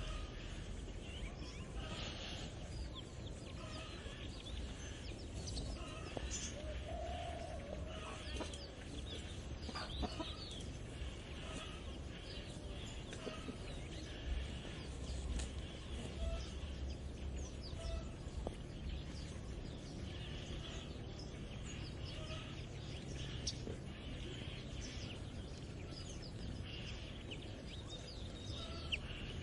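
Farmyard morning ambience: chickens clucking now and then while small birds chirp throughout, over a steady low rumble.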